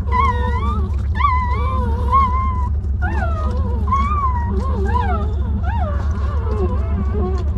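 Newborn puppies whining and squealing: many short, high cries that rise and fall in pitch, overlapping one another, over a steady low hum.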